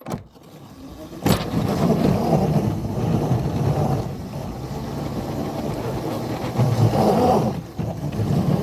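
Two locomotives pushing into deep snow, a steady churning run that starts suddenly about a second in and eases briefly near the end, with the engines slipping and pushing against the drift.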